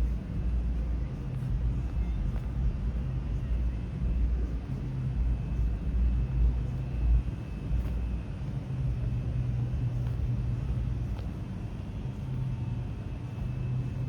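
Low, uneven rumble of road traffic in city night ambience, swelling and easing over a few seconds.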